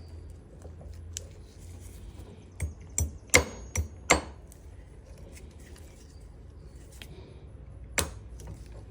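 Sharp metallic clicks and knocks from pressing a universal joint's bearing caps into a steering shaft yoke in a bench vise: a quick cluster of five or so about three seconds in and one more near the end, over a steady low hum.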